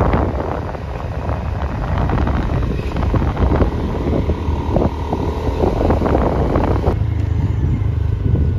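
Motor vehicle on the move: steady engine and road rumble with wind buffeting the microphone.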